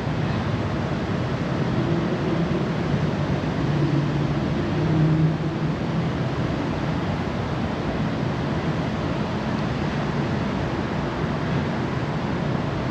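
Steady wind rushing over the microphone, with a faint low hum wavering underneath.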